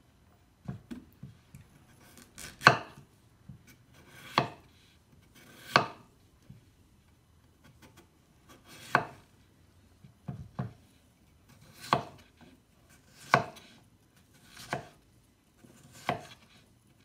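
Kitchen knife dicing a raw potato on a wooden cutting board: slow, uneven single chops, each a short slice through the potato ending in a sharp knock on the board. They come about one every second and a half, with a short pause near the middle.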